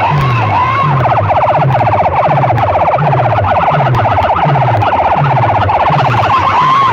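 Electronic siren-style effect sound blasted at full volume through a stacked array of horn loudspeakers in a DJ sound-system competition. Rapid repeating chirps ride over deep falling bass sweeps that come about every two-thirds of a second, with a wailing warble near the start and again near the end.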